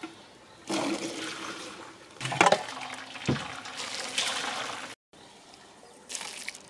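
Boiled soybeans and their cooking liquid being ladled out of a large pot into a bamboo basket, the liquid splashing and trickling through into a steel basin, with a couple of knocks of the ladle about two and a half and three seconds in.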